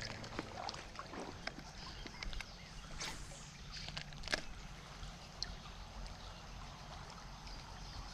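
Faint water sounds of a shallow creek, with small scattered ticks and two short sharp sounds about three and four and a half seconds in.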